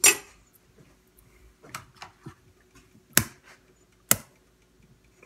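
Sharp single knocks of kitchen utensils and cookware against a granite countertop and a pan: one at the start, a few softer taps about two seconds in, and two loud knocks about a second apart near the end. A faint steady hum lies underneath.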